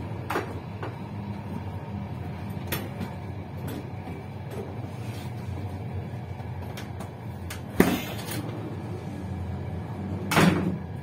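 Passenger train running, heard from inside the rear cab: a steady low rumble with a few sharp knocks, the loudest about eight seconds in and a longer one near the end.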